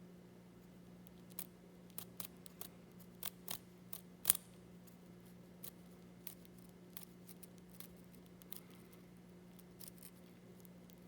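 Irregular sharp clicks and crackles from a praying mantis grappling with a cicada, thickest in the first half with one louder snap near the middle, over a steady low hum.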